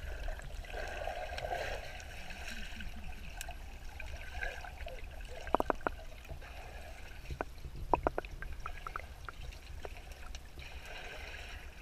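Swimming-pool water heard by a camera held underwater: a muffled wash of churning and bubbling from a swimmer kicking nearby, over a steady low rumble, with a few sharp clicks about five and a half and eight seconds in.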